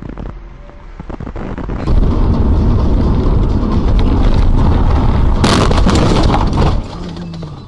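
Car collision heard from inside the car: a loud rush of engine and road noise, then a hard crashing impact with an oncoming car about five and a half seconds in. The noise drops away about a second later.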